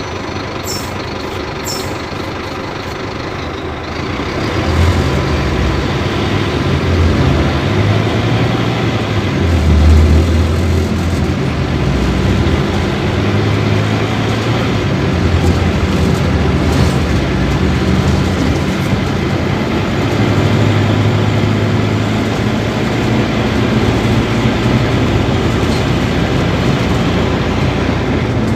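Scania K250UB city bus's diesel engine going from idle to pulling away about four seconds in. The engine note climbs and drops several times as the bus accelerates through its gears.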